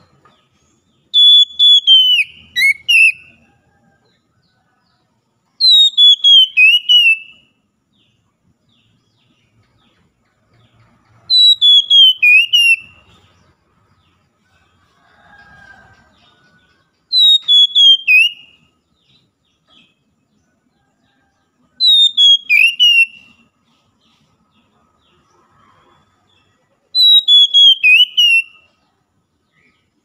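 Oriental magpie-robin (kacer) singing: a loud phrase of quick whistled notes sliding down in pitch, repeated six times about every five seconds.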